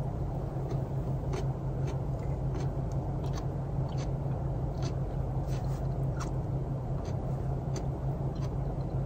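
Steady low hum and rumble of a vehicle heard from inside the cabin, with scattered faint clicks and ticks.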